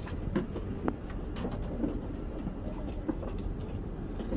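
Steady low rumble inside an airliner cabin during boarding, with clothing rubbing and knocking against the phone's microphone several times.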